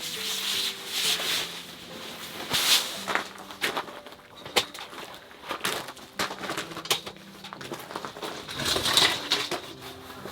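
Fabric and frame of a folding camp cot rustling, rubbing and scraping as it is handled and packed away, in a run of short irregular strokes, over soft background music.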